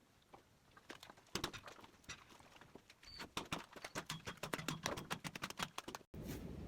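Cattle hooves clattering on concrete as dairy cows walk through the yard, a run of quick knocks that grows thicker and faster about halfway through. The sound cuts out abruptly just before the end.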